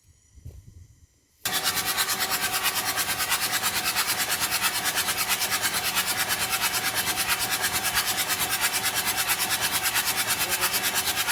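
Volvo diesel engine running, loud and steady with a rapid, even pulse, starting abruptly about a second and a half in. The owners report this engine as noisy and low on power.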